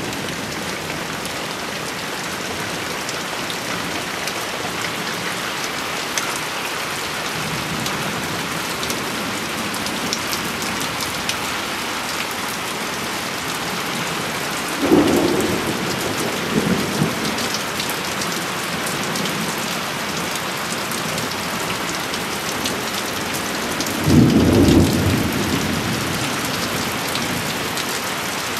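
Heavy rain pouring steadily onto roofs and leaves in a thunderstorm, with two short rumbles of thunder, one about halfway through and one near the end.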